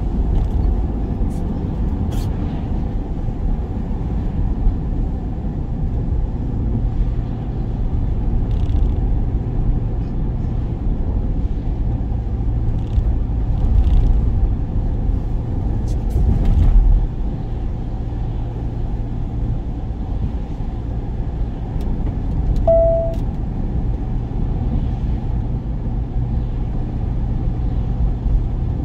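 Work van on the move: steady engine and road rumble heard from inside the cab. A brief single tone sounds about three-quarters of the way through.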